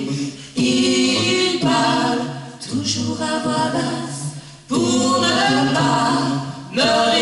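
Men's and women's voices singing a cappella in harmony, in sustained phrases with short breaks between them.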